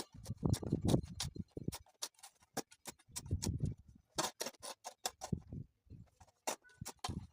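Irregular sharp clicks and knocks, several a second, with a few short low scraping rumbles, typical of a shovel working through wet concrete and gravel.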